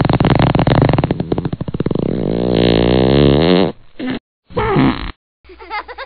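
Comedic fart sound effect: a long, loud, rapidly fluttering rasp that bends in pitch before it stops, followed by two short sputters. Music with a steady bass begins near the end.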